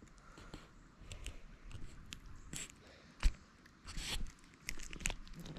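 Close-up handling noise as fingers work a hook out of a small fish's mouth: scattered light clicks and rustles, with one sharper click about three seconds in.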